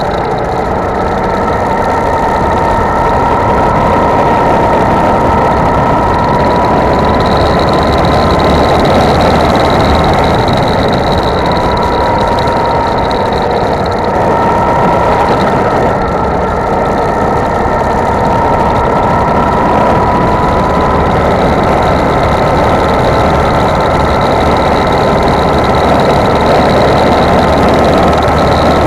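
Go-kart engine heard from on board, running continuously through a lap over a steady rushing noise. Its pitch rises and eases slightly as it goes through the corners and onto the straight.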